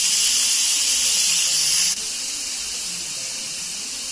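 Instant Pot Duo pressure cooker venting steam through its steam release valve: a loud, steady hiss of a quick pressure release at the end of the cooking cycle, which drops noticeably about two seconds in.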